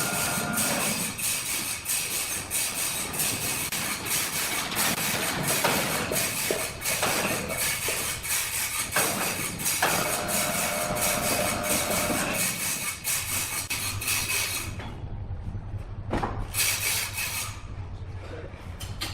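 Sawmill machinery running with a steady, rhythmic clatter of about three knocks a second and a high whine. About fifteen seconds in, the clatter and whine drop away, leaving a low hum.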